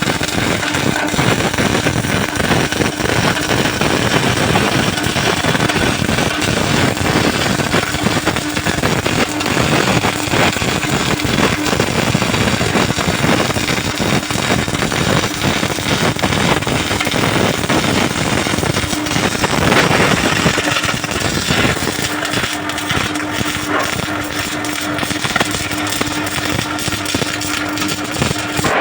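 MIG welding arc crackling and buzzing steadily, the dense frying sound of short-circuit wire welding, over a steady hum.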